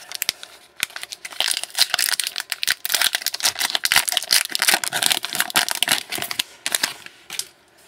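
Trading card pack wrapper being torn open and crinkled in the hands, a dense crackling of foil or plastic for most of the stretch.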